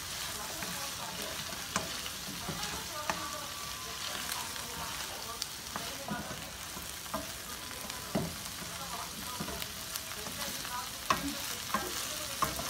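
Green peas and paneer cubes sizzling in hot oil in a wok as a spatula stirs them, with scattered light scrapes and taps of the spatula against the pan.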